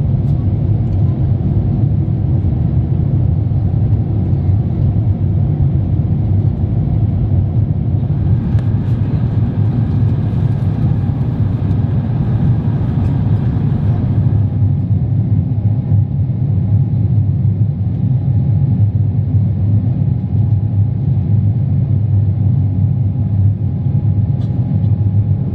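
Steady low rumble of an Airbus A350-900's Rolls-Royce Trent XWB engines and rushing airflow, heard inside the passenger cabin during the climb after takeoff.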